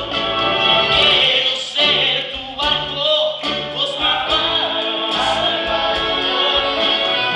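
Live musical-theatre song sung in Spanish: a male lead singer with a group of male backing vocalists over band accompaniment, heard from the audience in a theatre.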